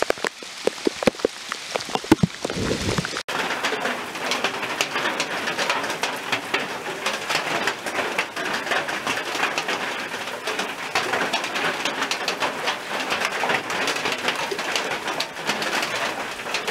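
Heavy rain falling on forest leaves. For the first three seconds big drops hit close by in loud separate taps, then after a cut the rain becomes a dense, even patter through the canopy.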